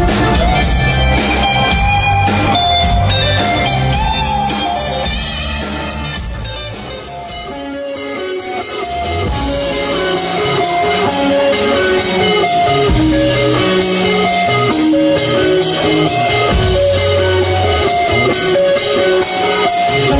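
Instrumental band music with electric guitar, bass and a drum kit keeping a steady beat; it eases off in volume about seven seconds in, then comes back in full.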